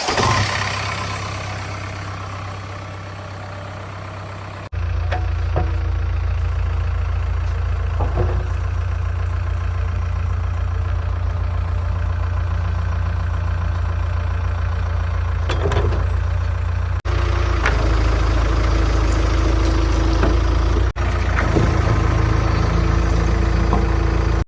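Heavy diesel engine running steadily at idle, with a few short clanks and sudden jumps in level where the recording is cut.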